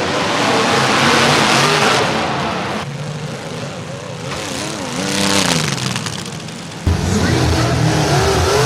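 Car engines revving and running, their pitch swinging up and down repeatedly, over a dense wash of noise in the first couple of seconds. About seven seconds in the sound changes abruptly to a louder, deeper engine.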